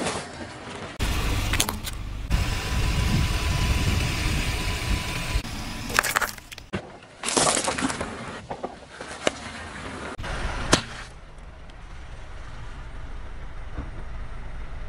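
A car's tyre rolling slowly over objects on asphalt and crushing them. Car and tyre noise is broken by sharp cracks and crunches as the things break under the wheel. The sound changes abruptly several times as one crushing clip cuts to the next.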